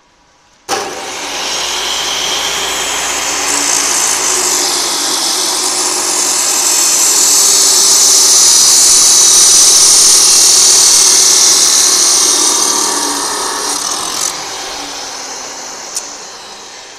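Bosch abrasive cut-off saw starting suddenly about a second in, its motor running as the green abrasive wheel grinds through an iron bar clamped in the vise. The high grinding sound is loudest in the middle of the cut, then the saw is let off and fades as it winds down.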